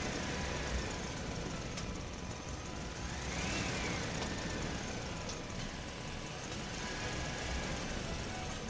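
Small electric motor and gears of a WPL B24 RC truck whining, rising and falling in pitch as the truck speeds up and slows, with a lower, flatter pass near the end.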